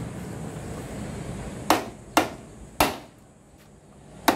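Four sharp hammer blows on the end of a screwdriver held against a Yamaha Mio Soul i 125 scooter's steering head, knocking the steering stem fittings loose to get out the worn knuckle (steering head) bearing. The first three come about half a second apart from about a second and a half in, and the fourth near the end.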